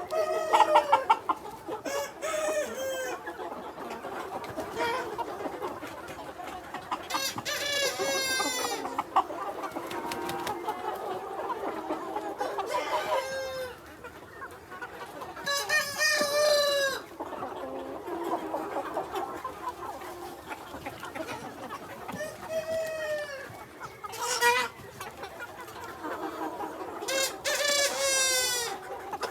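Free-range chickens clucking steadily while roosters crow again and again, a long crow every few seconds.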